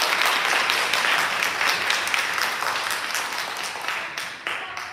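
Audience applauding: a dense patter of many hands clapping, which slowly thins and fades over the last couple of seconds.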